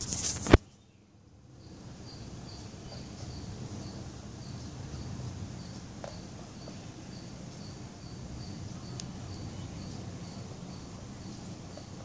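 A short burst of hiss ending in a sharp click at the start, then a steady low rustling noise with a faint high chirp repeating about three times a second.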